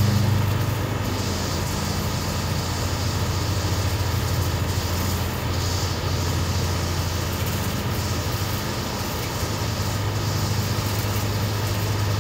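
A steady low mechanical hum over a constant background rush, a little louder in the first half second.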